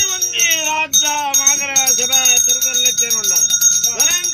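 Ritual music: a brass hand bell rings steadily under long melodic notes that slide up and down in pitch.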